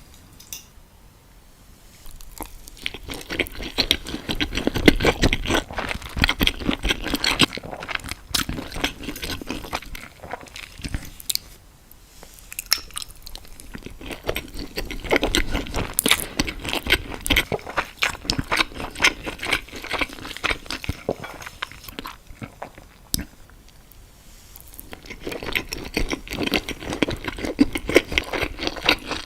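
A person eating close to the microphone: crunchy bites and chewing in three long stretches, with short quieter pauses between them.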